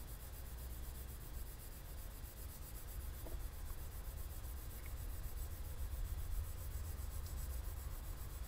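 Graphite pencil shading on sketchbook paper: the side of the lead rubs across the page to lay down an even patch of flat tone. The rubbing is faint and continuous.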